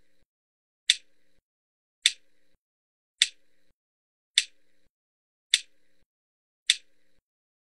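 Sharp clicks, one a little more than a second apart and six in all, each one marking the next count of a tasbih (dhikr) recitation; each click trails a faint short hum.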